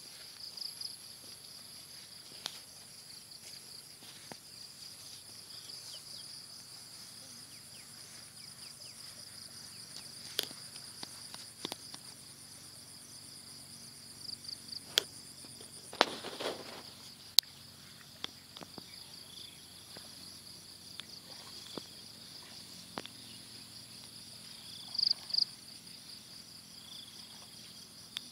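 A steady high-pitched insect chorus trills throughout. Scattered sharp clicks and knocks come over it, loudest about halfway through and twice near the end.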